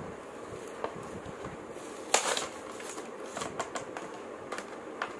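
Toy car's blister pack being opened by hand: cardboard backing torn away from the clear plastic shell, with crackling and crinkling of the stiff plastic. The loudest crackle comes about two seconds in, followed by a run of small clicks.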